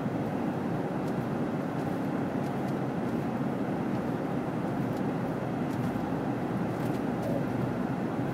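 Steady road and engine noise heard from inside a vehicle's cabin while driving at highway speed, with a few faint ticks.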